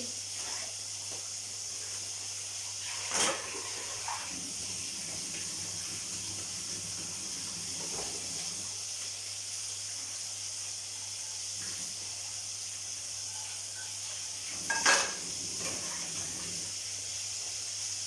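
Kitchenware clattering twice, sharply, about three seconds in and again about fifteen seconds in, with a few lighter knocks, over a steady hiss.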